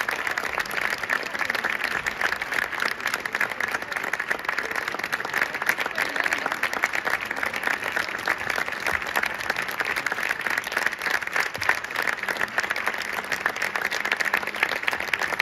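Audience applauding steadily: a dense, unbroken patter of many hands clapping.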